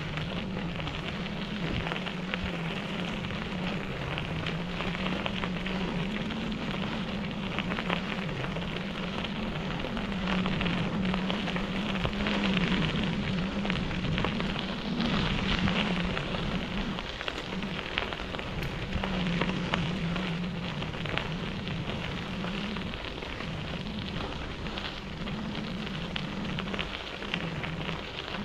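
Bicycle tyres rolling over a dirt and gravel trail: a continuous crackling crunch, with a low hum underneath that wavers in pitch.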